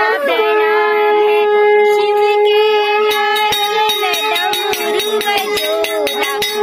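A conch shell (shankh) blown in one long, steady note that lasts about six seconds, the call sounded during a Hindu aarti. A regular rhythm of sharp strikes, about three a second, joins about halfway through.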